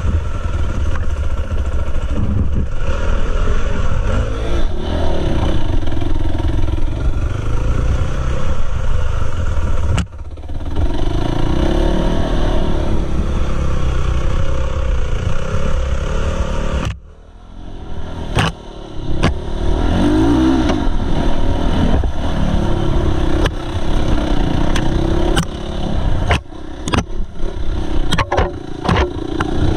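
Dirt bike engine revving and easing off as it is ridden up a rough trail. The throttle is briefly cut twice, about a third of the way in and just past halfway. Clattering knocks come in quick succession in the second half.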